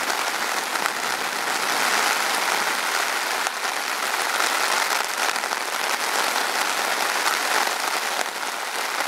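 Steady rain pattering on a tarp overhead, heard from underneath it, with rain falling on the forest around.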